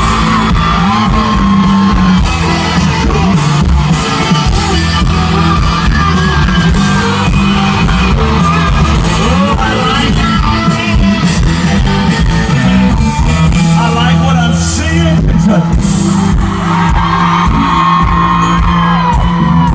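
Live country-rock band playing loud over a concert PA: amplified guitars over a steady bass and drum beat, with some singing.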